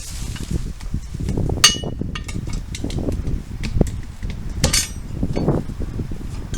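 Metal tools knocking and clinking against a car wheel while a tyre is worked on by hand. Two sharp ringing metallic strikes, one early and one past the middle, sound over steady low rubbing and knocking.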